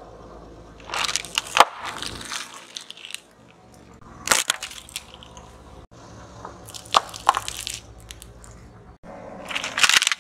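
A car tyre rolling over and crushing things in turn: a bag of potato chips, a bunch of hard-candy lollipops, then a small plastic toy. There are four separate bursts of crunching and cracking, each lasting about half a second to a second.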